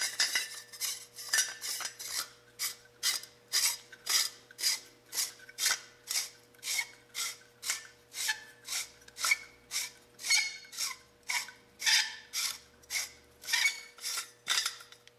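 Yankee Hill Machine diamond forearm being twisted by hand onto the threaded barrel nut of an AR-15 upper: metal threads rasping in short strokes, about two a second.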